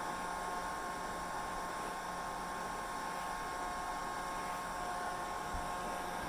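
Hair dryer running steadily: an even rush of fan and airflow noise with a steady whine running through it.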